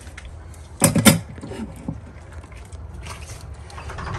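A stainless-steel dog bowl of kibble set down into a wire bowl stand, with two loud metal clanks about a second in. After it, a standard dachshund starts eating, with small clicks and crunches of kibble against the bowl.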